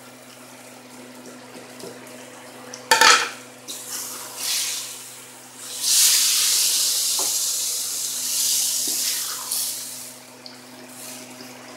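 A single sharp clank on a steel karahi about three seconds in, with a few lighter knocks. Then a loud, even sizzle as chicken, tomatoes and freshly added ground spices fry in hot oil while being stirred with a wooden spatula, lasting about four seconds before it fades.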